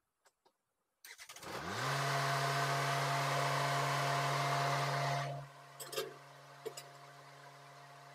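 A motor starting about a second in: its pitch rises quickly and settles into a steady hum under a loud hiss. About four seconds later the hiss cuts out, leaving a quieter steady hum with two knocks.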